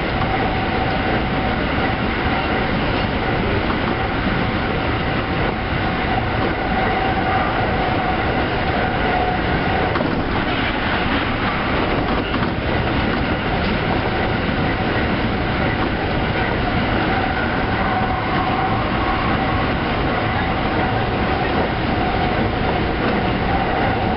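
Tsukuba Express electric train running at speed, heard from inside the driver's cab: a steady rumble of wheels on rail with a steady whine that weakens for a few seconds about halfway through and then returns.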